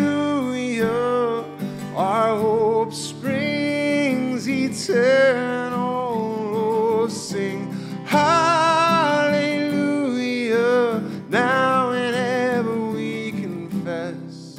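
Worship song: a singer holding long, wavering notes in phrases over acoustic guitar accompaniment.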